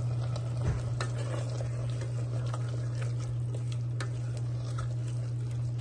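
Wooden spoon stirring soaked dried peas into a tomato-masala gravy in the steel inner pot of an electric pressure cooker: irregular scrapes and taps, the loudest knock about a second in, over a soft sizzle of the gravy. A steady low hum runs underneath.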